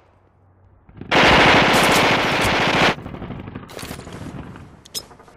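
Automatic gunfire sound effect: one sustained burst of rapid machine-gun fire about a second in, lasting roughly two seconds, followed by a fainter lingering tail and a couple of short sharp cracks.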